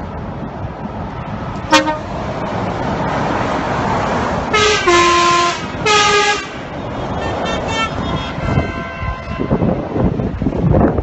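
Lorry air horn sounding as the lorry passes beneath on the motorway: a brief toot, then two longer blasts about a second apart, the first one dropping in pitch partway, over the steady rumble of the lorry's engine and tyres. The rumble rises near the end.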